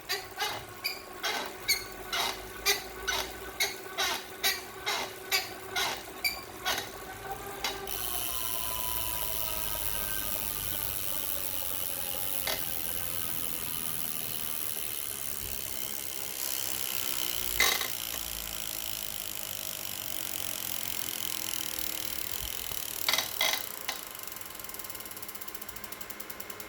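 Wahoo Kickr smart bike trainer squeaking in a steady rhythm, about two sharp squeaks a second. After about eight seconds it changes to an even whirring with a faint falling tone. A few squeaks return near the end.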